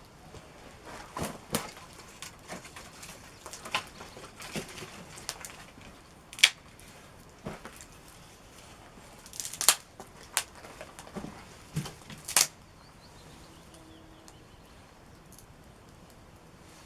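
Wood campfire crackling, with irregular sharp pops and snaps of burning sticks, about nine loud ones, dying down over the last few seconds.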